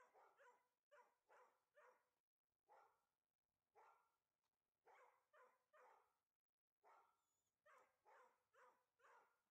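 Dog barking repeatedly and faintly, in loose runs of one to four barks with short gaps between them.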